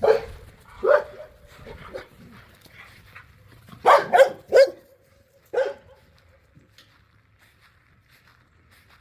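A dog barking in short, sharp barks: a couple near the start, three in quick succession about four seconds in, and one more a second and a half later.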